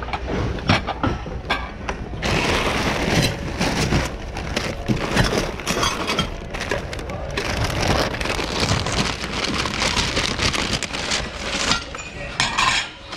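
Dense, continuous clatter and rustle of mixed goods being pushed around and handled in a thrift-outlet bin, many small knocks and clinks running together, with faint voices behind.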